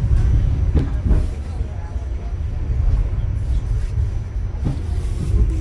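Steady low rumble of a New York City subway car running along the track, heard from inside the car, with a few short knocks.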